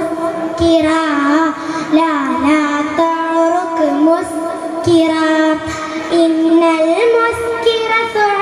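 A young girl singing an Arabic song solo into a microphone, in long held notes with wavering, ornamented turns and no clear words.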